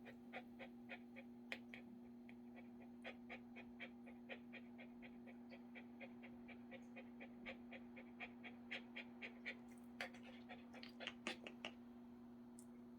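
Small dog panting softly and steadily, about three pants a second, over a steady low hum.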